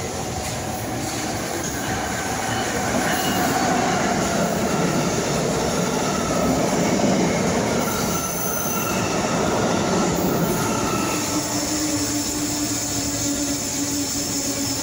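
Passenger trains passing close by a station platform: an Amtrak coach train rolls past with a steady rumble of wheels on rail that grows louder and peaks in the middle, with thin on-and-off wheel squeals. A SEPTA electric commuter train follows, and a steady low hum comes in about eleven seconds in.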